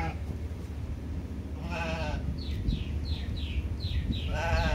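An animal calling twice with a wavering, bleating voice, about two and a half seconds apart. Between the calls comes a quick run of about seven short, high, falling chirps, over a steady low rumble.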